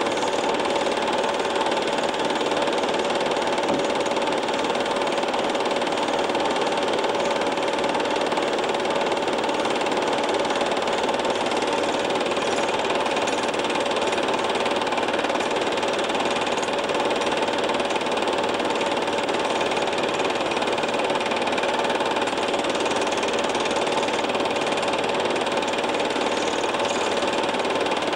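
Film projector running steadily: an even mechanical whirring clatter with a steady hum, unchanging throughout.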